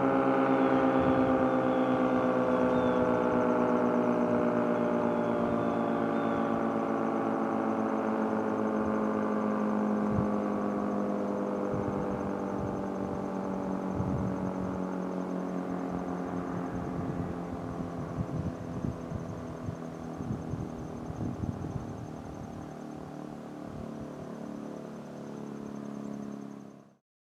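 Village outdoor warning siren winding down after a sounding, its chord of tones sliding slowly lower and fading, then cutting off abruptly near the end.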